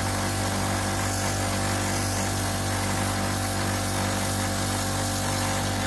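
Pressure washer running steadily: its motor hums evenly under the hiss of the water jet spraying across the walkway floor.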